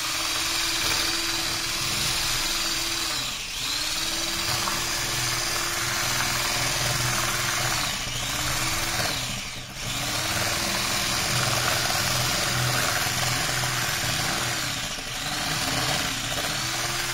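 Electric stick blender running in cocoa cake batter in a glass bowl, beating it smooth. Its motor hum is steady, but the pitch sags and climbs back several times as the blade slows and picks up again.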